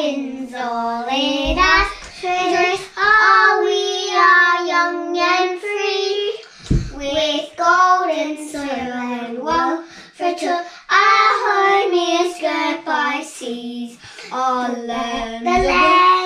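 Two young girls singing a song together, with sustained sung notes and short breaks between lines.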